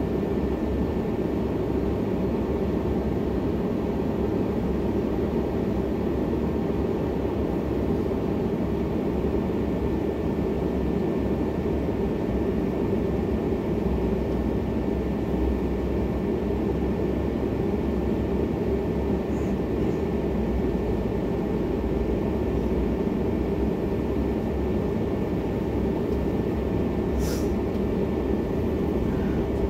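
Interior hum of a Helsinki city tram standing or barely creeping: a constant low drone from its running equipment with a faint steady high whine, and one short high click near the end.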